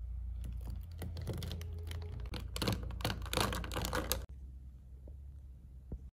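A spoon stirring whipped dalgona coffee into iced milk in a tall glass, the ice cubes and spoon clicking against the glass in quick, irregular clicks. After about four seconds the clicking stops.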